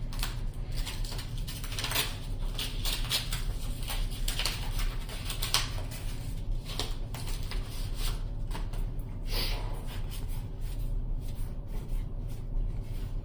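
Trading cards being handled and flipped through: scattered soft clicks and rustles, over a steady low hum.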